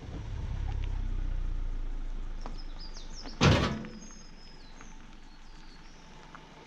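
A Ford Fusion sedan driving past slowly over a rough, rocky gravel track, its engine and tyres rumbling and then fading as it moves away, with a single loud thump about three and a half seconds in as it jolts over the rough ground.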